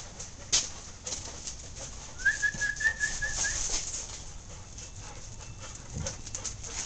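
Dogs' claws clicking and scrabbling on a concrete floor as puppies run and play, with a brief run of about six quick high chirps about two seconds in.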